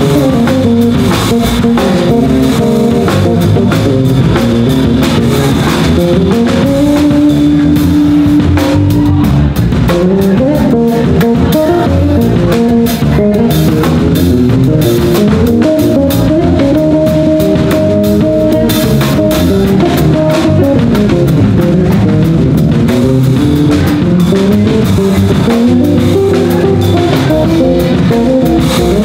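Two electric bass guitars, one a six-string, and a drum kit playing live: a bass melody line of held and moving notes over steady drumming.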